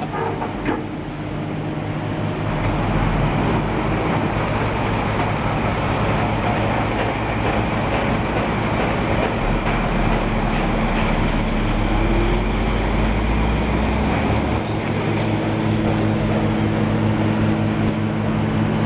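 A vehicle engine running steadily with a low hum over a constant mechanical noise. A deeper rumble swells at about two seconds, again around ten seconds, and drops away at about fifteen seconds.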